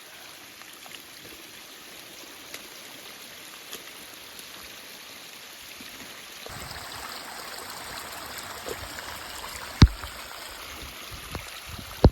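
Rainwater running down the trail like a stream, a steady trickling that grows louder about halfway through, with a sharp knock near the end.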